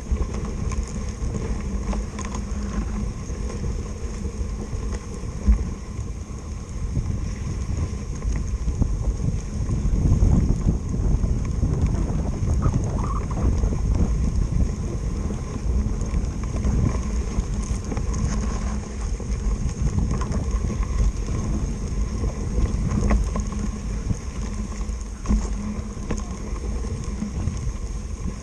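Wind buffeting the microphone over a steady low rumble from a moving dog sled, louder for a few seconds about a third of the way in.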